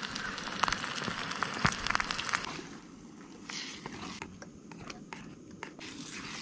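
Eggs and sliced potatoes sizzling and crackling in a skillet over a gas-canister camp stove, with a spatula scraping and stirring. The sizzle grows quieter about two and a half seconds in, leaving a few scattered clicks.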